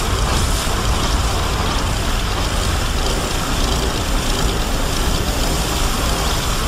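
Monster sound effect for a fan-made three-headed kaiju: a loud, steady rumble with a heavy deep low end and no clear pitch.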